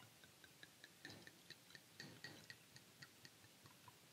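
Red wine poured from a glass bottle into a stainless steel tumbler: a faint run of quick glugs and drips, several a second.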